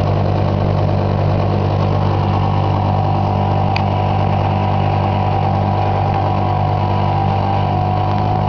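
Glass-grinding machine running steadily: an even electric motor hum under the whirring of the spinning, water-cooled grinding wheel.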